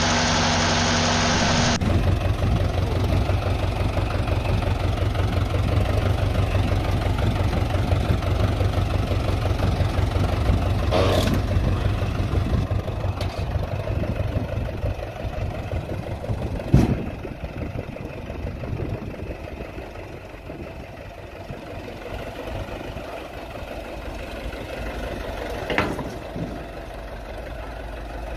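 Fordson Major tractor engines idling with a fast, even chug, the sound changing abruptly to a second Fordson Major about two seconds in. The second engine gets quieter past the middle, and a few short sharp clicks come through over it.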